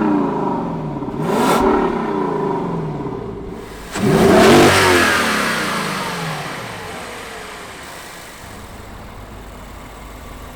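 Lexus LC500's 5.0-litre naturally aspirated V8 revved twice, its exhaust and tuned intake sounding together. A short blip comes about a second in, then a harder rev at about four seconds, the revs climbing quickly and sinking slowly back to a low idle.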